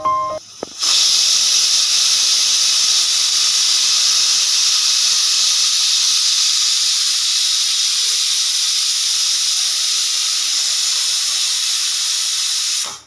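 Pressure cooker whistle blowing off steam: a loud, steady hiss that starts about a second in, holds for some twelve seconds and cuts off sharply near the end. It is the cooker's built-up pressure venting through its whistle.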